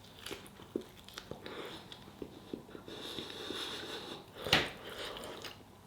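A person chewing a mouthful of burger, with small wet mouth clicks, and one short sharp sniff about four and a half seconds in.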